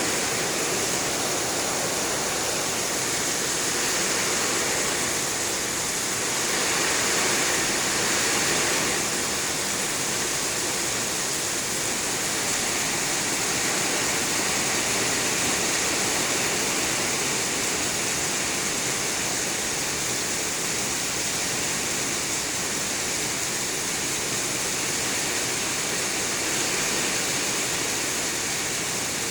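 Heavy rain pouring steadily, a dense even hiss that swells slightly a few times.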